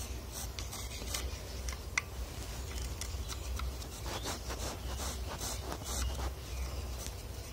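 Pencil scratching on a small plywood plate: a string of short, faint marking strokes, thickest in the middle of the stretch.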